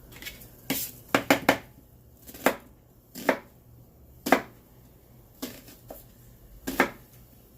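Knife chopping an onion on a cutting board: about ten sharp, irregular knocks, with a quick run of three a little over a second in.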